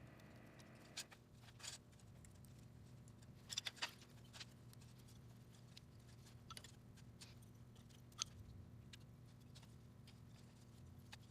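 Faint, scattered clicks and light knocks of thin wooden sticks being handled and stacked into a trap frame, a handful of them spread over several seconds, over a faint steady low hum.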